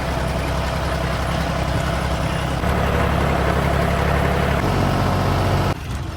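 Tractor engine running with a steady low drone. It gets a little louder about two and a half seconds in and cuts off abruptly near the end.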